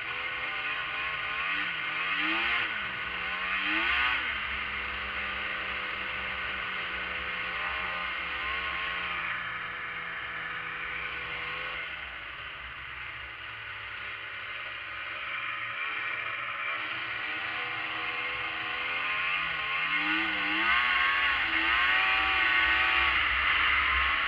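Arctic Cat ZRT 600's three-cylinder two-stroke engine running under way, revving up twice in the first few seconds, holding steady, easing off about halfway, then climbing again and running loudest near the end.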